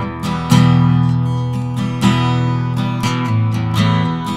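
Solo acoustic guitar strumming chords, each stroke ringing on into the next.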